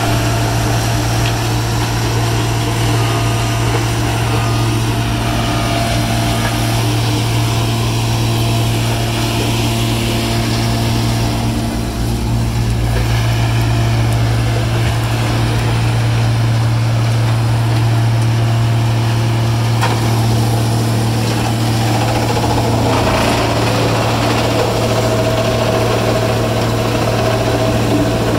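D5600 horizontal belt-feed grinder's diesel engine running steadily under load as it grinds yard waste and brush, a loud continuous deep hum, with a Cat 262D skid steer working alongside to feed it.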